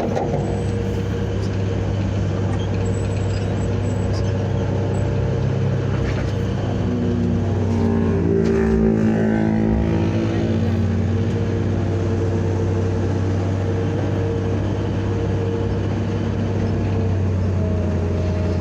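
Caterpillar 320B excavator's diesel engine running steadily. Between about seven and ten seconds in, its pitch climbs and drops back as the machine works.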